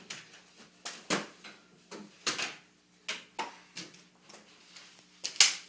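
A run of about a dozen short scuffing swishes of something rubbing on carpet, coming at uneven intervals, the loudest near the end.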